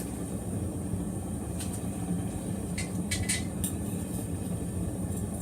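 Steady low hum of shop machinery, with a few short, sharp scratching sounds about one and a half to three and a half seconds in.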